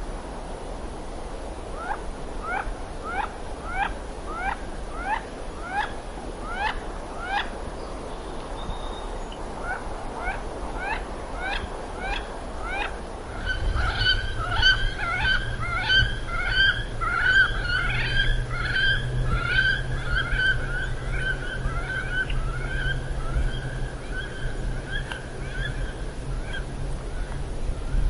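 Birds calling over a steady rushing background: short, sharply rising calls repeat about twice a second. From about halfway a denser, overlapping run of calls takes over, joined by a steady low hum.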